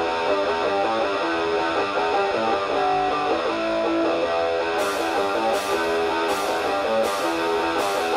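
Background music led by plucked guitar. From about five seconds in, short high-pitched strokes join in about every three-quarters of a second.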